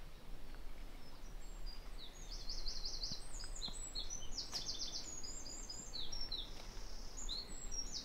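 A small songbird singing: a lively, high-pitched song of fast trills and rapid runs of repeated notes, starting about a second and a half in and going on for several seconds.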